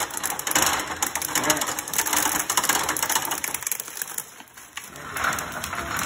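Hand-cranked cast-iron corn sheller turning, its gears and toothed wheel rattling and clicking as an ear of corn is shelled. The rattle eases off for about a second around four seconds in, then picks up again.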